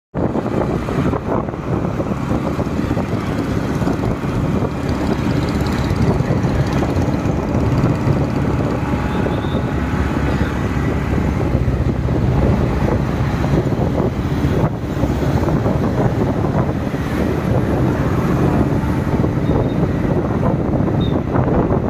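Wind rushing over the microphone of a moving motorcycle, with the bike's engine and road traffic underneath, steady throughout.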